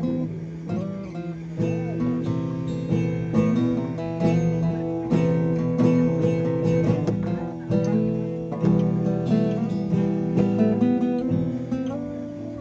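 Acoustic guitar playing: strummed chords with a picked melody line moving over them.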